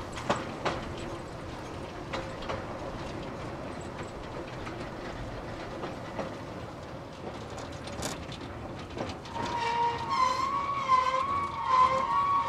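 Grand Supercart, an open rail cart, rolling along the track with scattered clicks of steel wheels over the rails. About three-quarters of the way in, a loud, high, wavering squeal sets in as the cart slows at the station.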